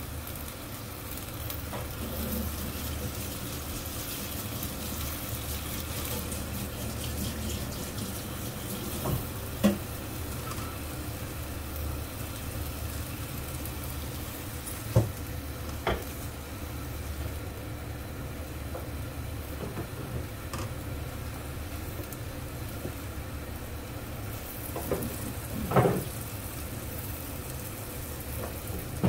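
Pumpkin and long beans sizzling steadily in sauce in a nonstick wok, with a few sharp knocks and scrapes of a silicone spatula against the pan.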